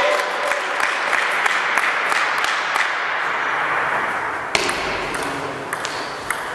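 Table tennis ball clicking off the bats and table during a rally, with sharp separate hits in the second half. A steady background hiss fills the first four seconds or so.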